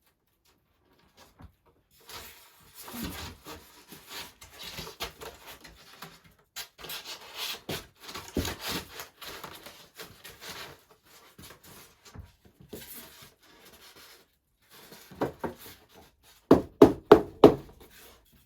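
An insulation board being scraped and rubbed as it is pushed into a gap, then knocked into place with a quick run of about five sharp knocks near the end, the loudest sounds here.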